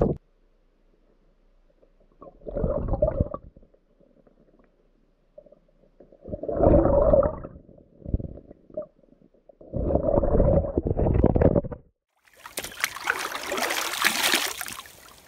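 Muffled gurgling and sloshing of stream water, heard with the microphone underwater, in four bursts. About twelve seconds in, the sound comes from above the surface: stream water splashing as it is scooped into a collapsible water bag.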